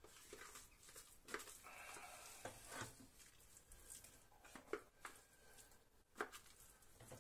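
Faint scraping of a spatula inside the stainless-steel mixing bowl of a Monsieur Cuisine food processor as chopped mushrooms are emptied out, with several short knocks of the spatula and bowl.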